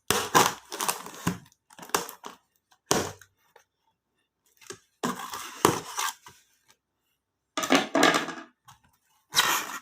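Irregular bursts of crinkling and tearing as packaging is handled and torn open, with short pauses between them.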